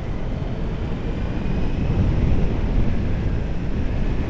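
Honda Hornet 900 motorcycle on the move, its inline-four engine and wind rumble on the bike-mounted microphone, growing louder over the first couple of seconds as it picks up speed.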